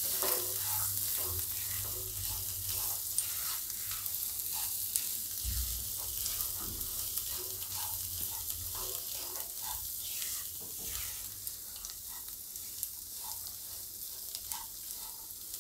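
Boiled whole green moong beans sizzling in a little hot oil in a nonstick kadai, stirred with a silicone spatula that scrapes and taps the pan every so often. The sizzle grows slowly quieter toward the end.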